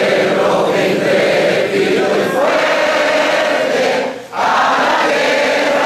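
A crowd of voices singing together in unison, with a short breath pause about four seconds in.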